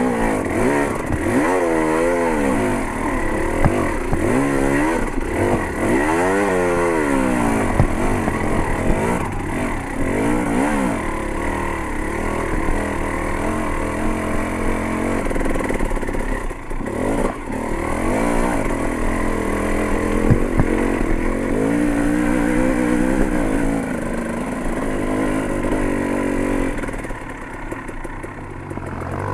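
Dirt bike engine revving up and down repeatedly as it climbs a rough, steep dirt trail, then running steadier, with a few knocks and rattles from the bike over the ground. It settles lower and quieter near the end.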